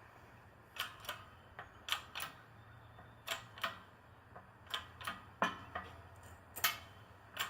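Over a dozen sharp metallic clicks and taps, irregularly spaced, over a low steady hum: hand work at a shop press while a carrier bearing is pressed onto a GM 8.5-inch rear-axle differential carrier.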